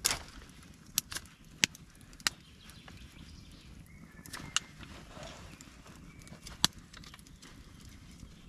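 Irregular sharp knocks and taps, about seven spread across a few seconds, over a low steady background.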